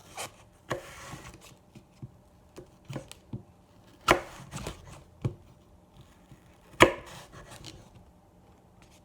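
Knife slicing an apple into small thin slices, the blade chopping down onto the board in irregular knocks, the two loudest about four and seven seconds in.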